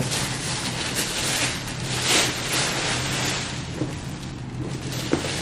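White tissue-paper wrapping rustling and crinkling as it is torn open and pulled away from a cardboard box, in irregular crackly handfuls.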